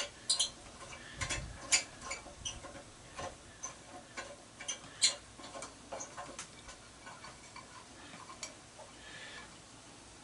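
Irregular light clicks and taps of hand tools and metal parts being handled while an aluminum light fixture is taken apart. They come a few times a second, louder in the first half, and thin out toward the end.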